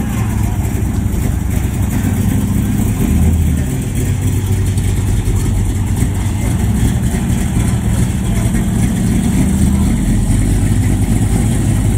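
Engine of a hot-rodded mid-1950s Chevrolet with a hood scoop, idling loudly and steadily as the car creeps along at walking pace. The engine note swells briefly about three seconds in.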